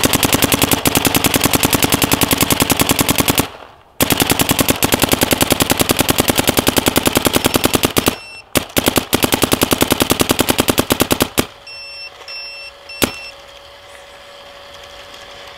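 Dye M3+ paintball marker firing rapid strings of shots, broken by two short pauses, then a few single shots. Near the end come three short beeps and a faint steady hum.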